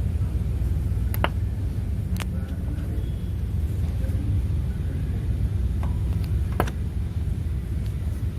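Engine of a 2021 Chevrolet Tahoe or GMC Yukon running at a steady idle, a low even rumble, with a few scattered sharp clicks.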